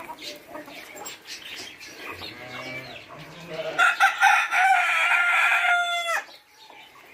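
Chickens clucking, then a rooster crows once, a long loud call of about two and a half seconds starting near four seconds in and falling off at the end.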